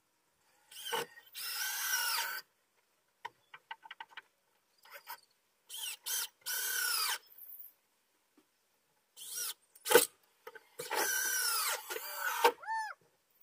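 Power drill driving screws into deck boards in three short bursts of a second or so, its whine rising and falling, with small clicks in between and one sharp knock about ten seconds in.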